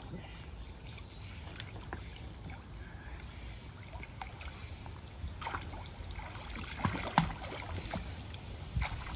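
Water lapping and sloshing lightly in a small inflatable paddling pool as a child moves about in it, with a few soft splashes and knocks a little past the middle, over a low steady rumble.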